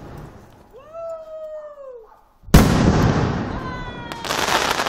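An aerial firework shell bursts with a sudden loud bang about halfway through. A long crackling decay follows, with a second surge of crackle and thin falling whistles near the end. Before it, the tail of an earlier bang fades and a short rising-then-falling cry sounds.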